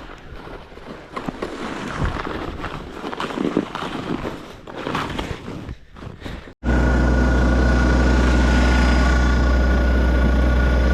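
A homemade skateboard sled scraping and crackling over iced-over snow crust, with irregular sharp clicks. About six and a half seconds in it cuts abruptly to a loud, steady engine running close by with a constant low hum.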